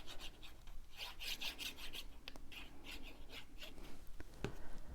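Paper pieces being handled: short scratchy strokes of paper rubbing and sliding against paper or a work surface, with a few light clicks.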